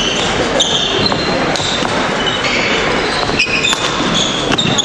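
Badminton rally: sharp racket strikes on the shuttlecock and court shoes squeaking briefly on the wooden sports-hall floor as the players move and lunge.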